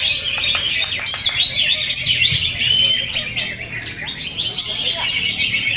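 Several green leafbirds (cucak ijo) singing at once: a dense, unbroken tangle of overlapping chattering whistles, chirps and trills.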